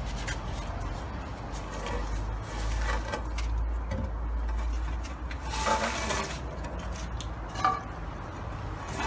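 Scattered light clinks and knocks of metal being handled, with a clattering burst about two-thirds of the way through and one sharp knock near the end, over a steady low rumble.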